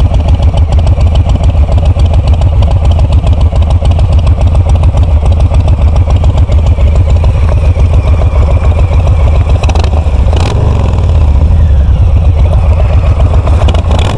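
Harley-Davidson Softail Standard's Milwaukee-Eight V-twin idling through aftermarket MCJ mufflers and a Screamin' Eagle high-flow air filter (a Stage 1 setup), a steady deep pulsing note. The note shifts briefly about ten seconds in.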